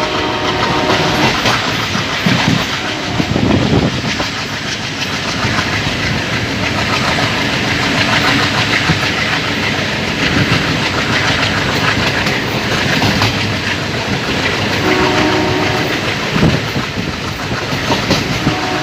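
Passenger train running along the track, heard on board: a steady rushing noise with the clickety-clack of wheels over rail joints. The steady hum of its diesel locomotive engine comes through briefly about 15 seconds in.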